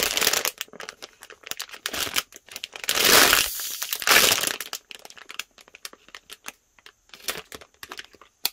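Crinkly plastic packaging of a squishy toy rustling as it is handled, turned over and squeezed through the bag. There are two louder stretches of crinkling about three and four seconds in, then sparser crackles, and a sharp click right at the end.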